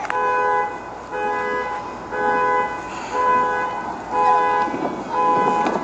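Car horn sounding in short, evenly spaced blasts, over and over. A firework bang comes at the start and another near the end.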